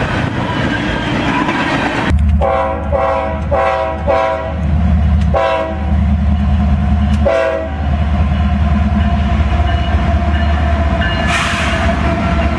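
Florida East Coast Railway freight train. Boxcars roll past for the first two seconds, then an approaching FEC diesel locomotive sounds its horn in four quick short blasts, one more, and a last one, over the heavy low rumble of the train. The locomotive passes close by near the end.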